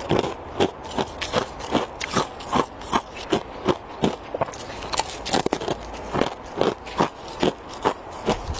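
Ice being bitten and chewed, a thin ice stick and frosty white ice, making a steady run of crisp crunches about two to three a second.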